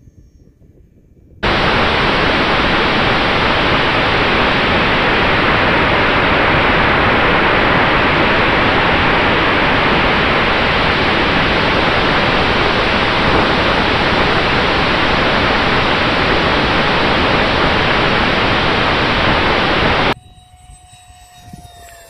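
Twin 64 mm electric ducted fans and rushing air heard from a camera mounted on the E-flite A-10 Thunderbolt II in flight: a loud, dense, steady rush with a faint steady whine. It starts abruptly about a second and a half in and cuts off abruptly about two seconds before the end. Then, much fainter, the jet's fan whine falls in pitch as it flies past.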